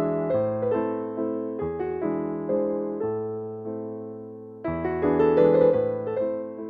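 Background piano music: gentle notes and chords struck one after another and left to ring, with a louder chord about two-thirds of the way through.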